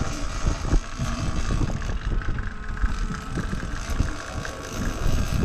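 Wind buffeting the microphone in irregular low rumbles, over the steady drone of a fishing boat under way at sea.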